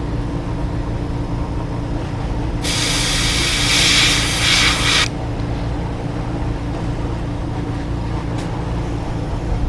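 Airbrush spraying paint through a mesh stencil onto the lure: one even hiss of about two and a half seconds, starting about three seconds in, at a light pressure of around 10 PSI. A steady low hum runs underneath throughout.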